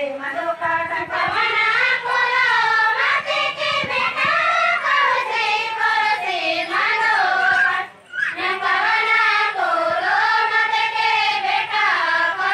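A group of women singing a Dandari dance song together in long, gliding melodic phrases, with a short break about eight seconds in.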